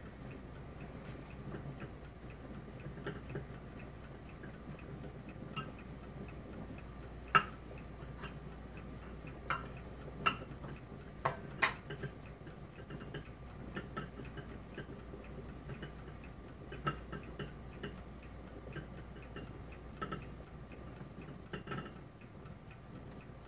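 Scattered light clicks and taps of a fork against dishes and the cutting board as a slice of cheese is dredged in flour. The taps come at uneven intervals, loudest about seven seconds in and again around ten to twelve seconds in.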